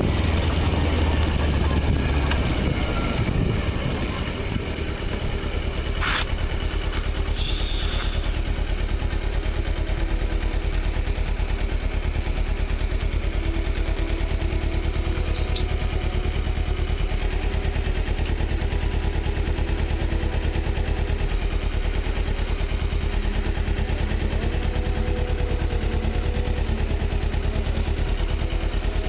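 Vehicle engine running steadily with a constant low rumble, with a brief click about six seconds in.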